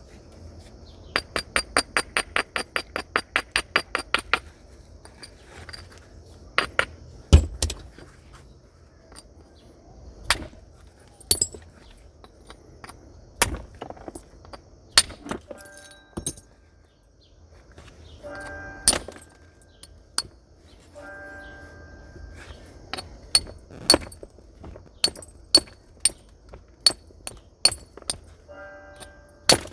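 Flint nodule being knapped with natural stone and antler tools. A quick run of light ticks comes first, then sharp clicking strikes, the loudest about seven seconds in with a dull thump. Near the end the strikes come about one a second.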